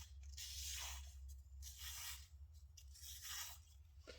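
Steel kitchen knife blade (a Japanese gyuto) drawn along a whetstone: four scraping sharpening strokes, about one every 1.2 seconds.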